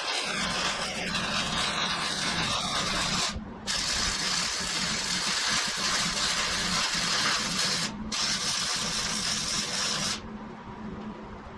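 Electric welding arc crackling and hissing in three runs, broken off briefly about three and a half and eight seconds in and stopping about ten seconds in, with a steady low hum from the welder underneath.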